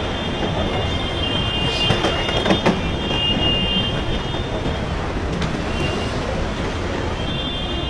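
Tsunami floodwater surging through a town and carrying cars and debris: a steady rushing roar, with a few knocks of debris about two to three seconds in and a high tone that comes and goes above it.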